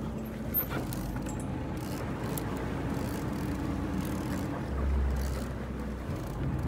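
Boat engine running at low speed, a steady low rumble with a faint hum, swelling for about a second near the middle.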